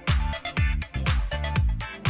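Electronic dance music with a heavy, pounding kick drum beat and bright cymbals.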